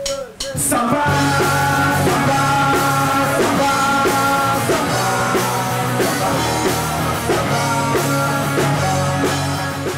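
Rock band playing electric guitars, bass and drums, kicking in about a second in with a steady beat.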